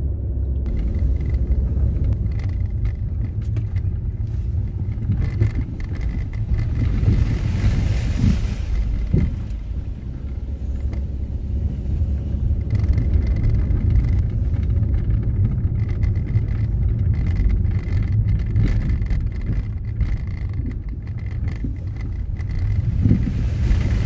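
Car driving on a narrow road, heard from inside the cabin: a steady low rumble of engine and tyres, with a couple of brief swells of hiss.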